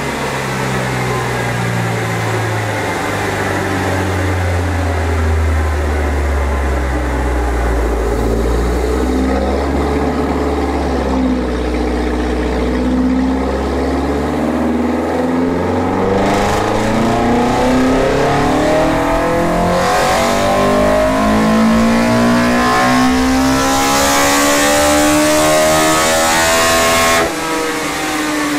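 Toyota 4A-GE 1.6-litre four-cylinder with 52 mm individual throttle bodies pulling at full throttle on a chassis dyno, revs climbing steadily through a power run to the top end. Near the end the throttle is lifted and the engine note drops off abruptly.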